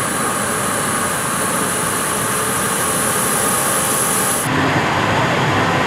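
Steady aircraft noise on an airport apron: a continuous hiss with a high steady whine. About four and a half seconds in it changes abruptly: the high whine drops out and a lower rumble takes over.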